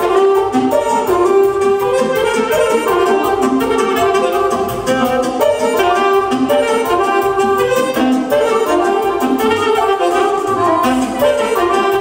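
Loud amplified dance music for a hora circle dance: a fast-moving melody on a wind instrument over a steady drum beat.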